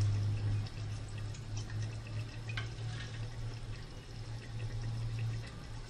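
Cooking oil heating in a frying pan, with a few faint ticks and crackles over a steady low hum.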